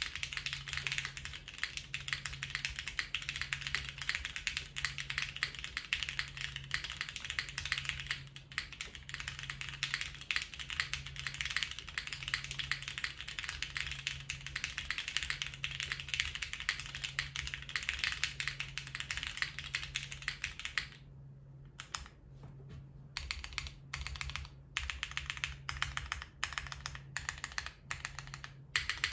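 Steady fast typing on a custom tenkeyless mechanical keyboard with lubed, filmed MX Black linear switches, GMK keycaps and no case foam. About two-thirds of the way through, the typing thins to slower, separate keystrokes.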